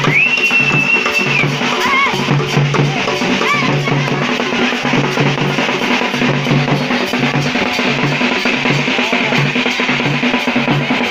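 Live drumming on handheld frame drums and a shoulder-slung barrel drum, beating a steady, loud repeating rhythm. A long flat whistle sounds at the start, and a couple of short calls come a few seconds in.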